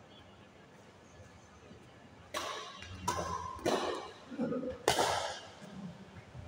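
Badminton rally: four sharp racket hits on the shuttlecock, coming about two seconds in and spread over under three seconds, each ringing out briefly in the hall.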